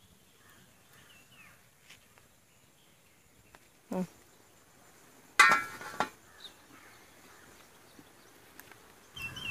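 Iron wok set down on a sheet-metal wood stove: a small knock about four seconds in, then a loud metal clank that rings briefly about a second later, with a smaller knock after it.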